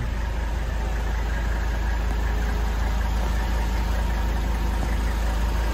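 Mercedes-Benz 300SD's 3.0-litre turbodiesel inline-five idling steadily.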